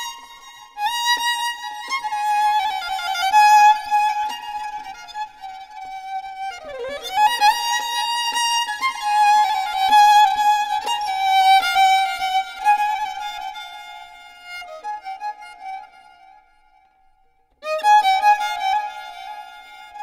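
Solo violin music playing a slow melody. About seven seconds in the pitch slides down and back up, and near the end the tune stops for about two seconds before it resumes.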